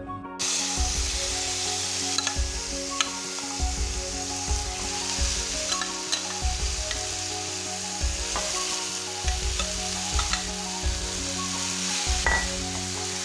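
Marinated chicken pieces hitting a hot nonstick wok of melted margarine and ginger, setting off a sizzle that starts suddenly just after the start and keeps on steadily. A metal spatula clicks and scrapes against the pan now and then as the chicken is stirred.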